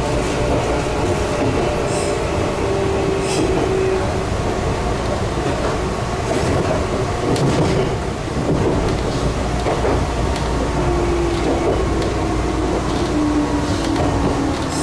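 Meitetsu 6000 series electric train running: a steady rumble of wheels on the rails, with a few sharp clicks at rail joints. A motor hum slowly falls in pitch near the end.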